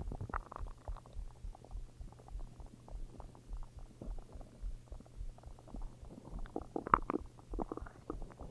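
Human stomach growling: a continual run of short gurgles and squelching pops, with a louder, longer gurgle about seven seconds in.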